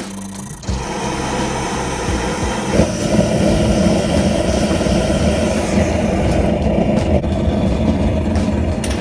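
A loud, steady mechanical roar of shop equipment that swells about three seconds in.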